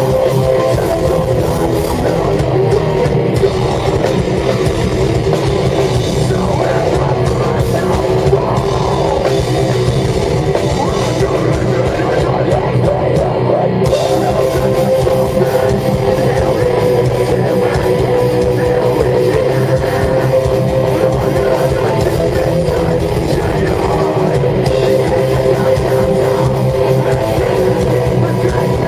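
Live metalcore band playing loud and without a break: distorted electric guitars over a pounding drum kit.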